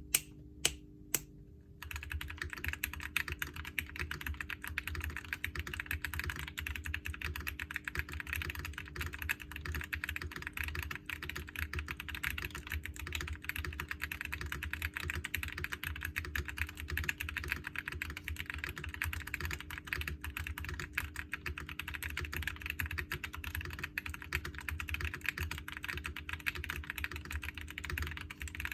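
Continuous fast typing on a mechanical keyboard with lubed and filmed Gazzew Boba U4T 62g tactile switches, a brass plate, a gasket-mounted stacked acrylic case, a two-layer tape mod and Cherry-profile keycaps. A few separate keystrokes come first, then steady rapid typing starts about two seconds in.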